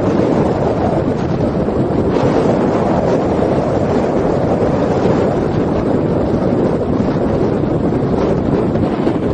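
Steady, loud rushing wind noise on the microphone, without distinct events.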